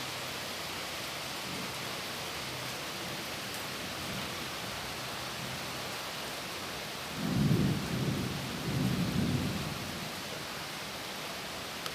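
Steady rain falling, with a low rumble of thunder about seven seconds in that swells twice and fades over about three seconds.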